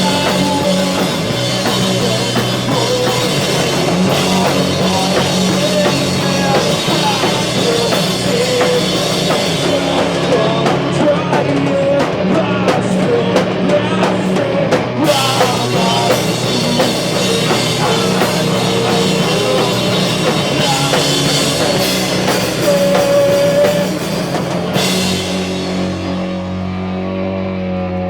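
Live rock band playing loud: guitars over a drum kit. Near the end the drums and cymbals stop and the guitars ring on as the song closes.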